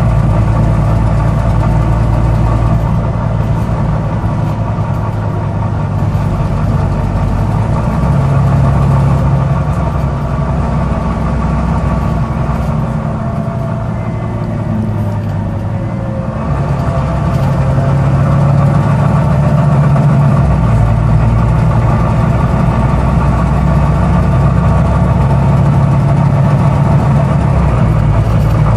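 Volvo B9TL double-decker bus's six-cylinder diesel engine running, its note dipping about halfway and picking up again, with a clicking noise.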